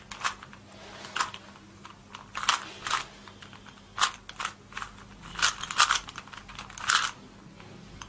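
A 3x3 Rubik's cube being twisted by hand: irregular plastic clicks and clacks as its layers turn, with a quicker run of turns a little past the middle.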